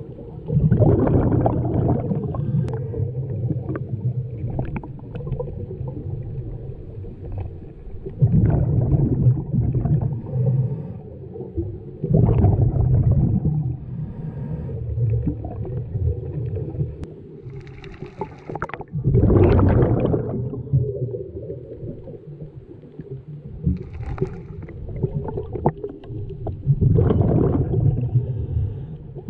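A scuba diver breathing underwater through a regulator: bursts of exhaled bubbles rumble out every few seconds, with a fainter hiss of inhaling in between.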